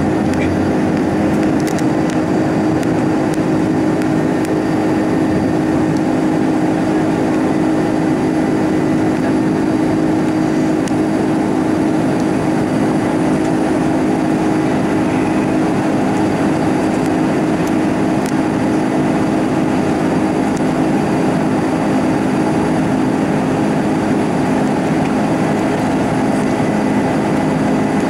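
Airbus A310 cabin noise from a window seat beside the wing while climbing out after take-off: the turbofan engines and rushing air make a loud, steady drone with a constant low hum that does not change.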